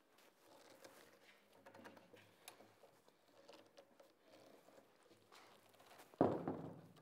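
Steel bar clamps being handled and tightened on a wooden workbench: faint scattered clicks and light knocks, then one louder knock about six seconds in that trails off briefly.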